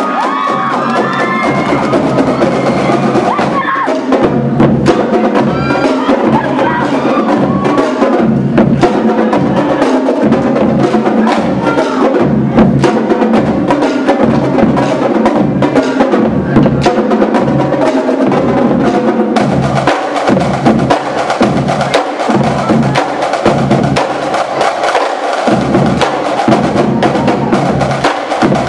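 Marching drumline playing a drum cadence: snare drums and tenor drums in quick, sharp stick strokes over low bass-drum notes at several different pitches.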